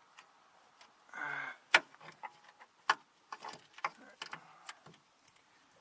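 Irregular metallic clicks and clinks of a hand wrench working the 13 mm nut back onto the battery cable terminal at the starter solenoid. About a second in there is a brief voice sound, and the two loudest clicks come a little over a second apart.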